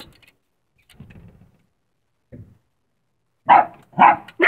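A small dog barking twice in quick succession, about half a second apart, near the end; before that only a faint low rustle.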